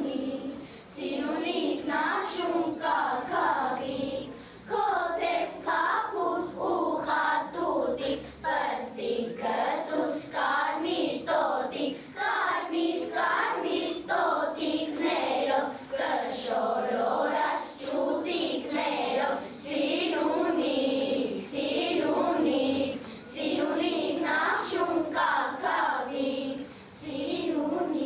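Children's choir singing, in sung phrases with brief pauses for breath between them.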